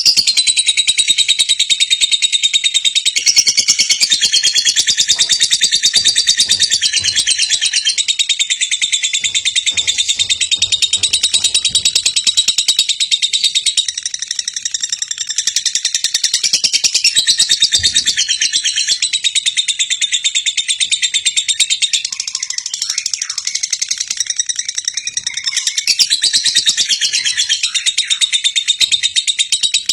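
Lovebird singing its 'ngekek': one long, unbroken stream of very rapid, high-pitched chattering chirps with small shifts in pitch and no pauses for breath.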